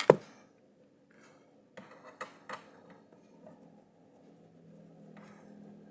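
Light handling sounds of fitting screws by hand: a sharp click right at the start, then a few small clicks and taps about two seconds in, with faint rubbing in between.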